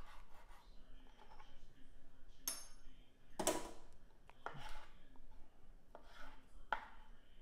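Chef's knife slicing through a smoked chicken sausage and knocking on a plastic cutting board: about seven separate cuts at an uneven pace, the loudest about halfway through. One stroke about a third of the way in rings briefly.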